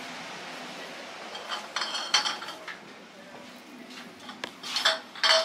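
Pottery dishes and mugs clinking together in two short clusters of ringing clinks, the second, near the end, the louder.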